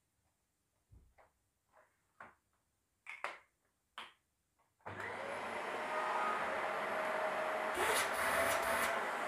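A few short knocks and clicks of handling, then a Dyson cylinder vacuum cleaner is switched on about five seconds in and runs steadily with a faint whine.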